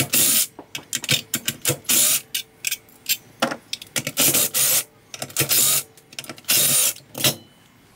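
Cordless power driver spinning out the cover bolts of a Polaris RZR Turbo primary clutch in several short bursts, with small metal clicks and clinks of bolts and parts being handled between them.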